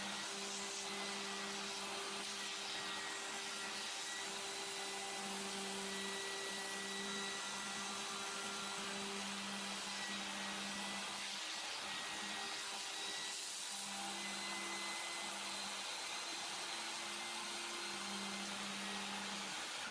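Small CNC router with a 300 W spindle motor milling white plastic sheet, with a vacuum hose drawing off the chips: a steady machine and vacuum noise with a low hum that drops out and comes back every second or two as the cut goes on.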